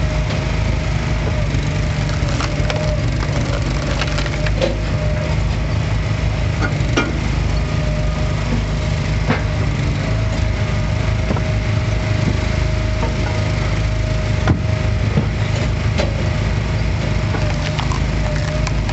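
Engine-driven hydraulic log splitter (Easton Made) running steadily with a constant whine, as rounds of firewood are split with sharp wood cracks every few seconds.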